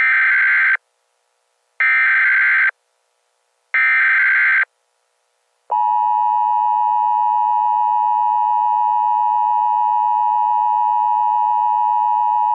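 Emergency Alert System tones: three short bursts of screeching SAME header data about a second apart, then, about six seconds in, the steady two-tone EAS attention signal.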